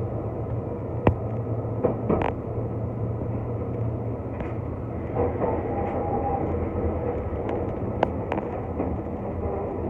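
Keihan electric train running: a steady low rumble with scattered clicks and knocks from the wheels and track, the sharpest about a second in, and a brief faint tone about halfway through.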